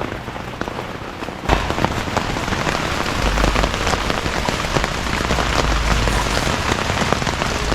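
Heavy rain pattering densely on a tent, a steady hiss packed with many separate drop clicks. About a second and a half in it turns suddenly louder and fuller, with a low rumble underneath.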